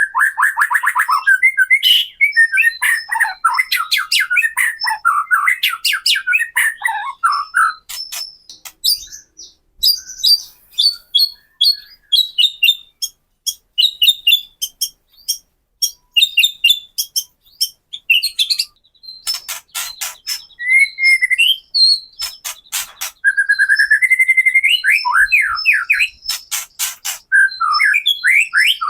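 White-rumped shama (murai batu) singing: fast dry rattling 'kretekan' trills mixed with quick warbled phrases. It thins to sparse high twitters through the middle, then the loud rattles and rising whistled notes return near the end.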